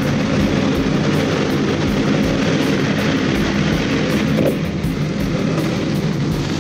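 Ford F-150 Raptor pickup driving at highway speed, heard from inside the cab: a steady engine drone under the hiss of tyres and wind. A brief rising tone comes about four and a half seconds in, after which it is a little quieter.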